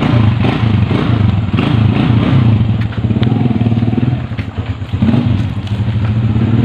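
A small motorcycle engine running steadily with a fast, even pulse, easing off briefly about four seconds in.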